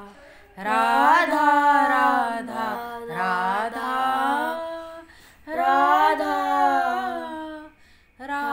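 A female voice singing a Radha-Krishna devotional song (bhajan) with no instruments, in long held phrases broken by two short pauses for breath.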